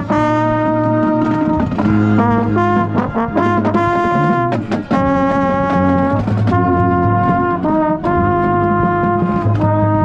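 Marching band brass playing loud held chords, the trombone nearest the microphone standing out, the notes changing every second or two. A few sharp hits come about halfway through.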